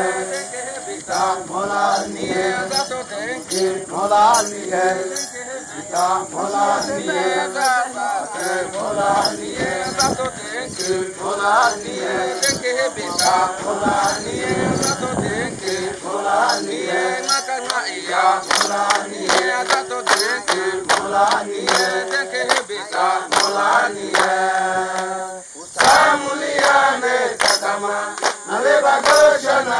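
Hadzabe men and women singing a chanted dance song together, over a steady beat of sharp strikes about twice a second. The singing breaks off briefly near the end and picks up again.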